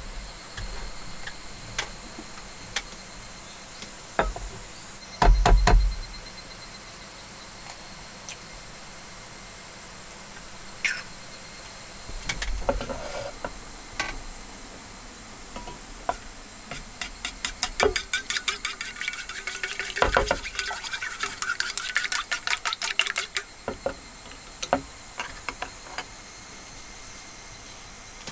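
Eggs cracked with a few sharp knocks, then beaten with chopsticks in a small metal bowl: fast, even clicking of the chopsticks against the bowl's side for about six seconds in the second half.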